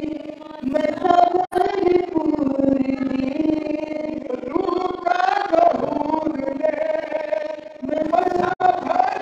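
Singing of a devotional song, with long held notes that bend gently from one to the next. Twice the sound drops out for an instant, once about one and a half seconds in and once near the end.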